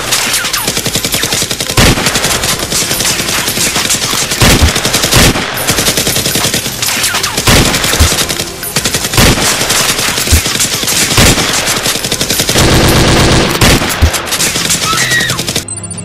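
Automatic gunfire sound effects: rapid machine-gun fire in long, nearly continuous bursts, laid over a first-person Nerf blaster game in shooter-video-game style.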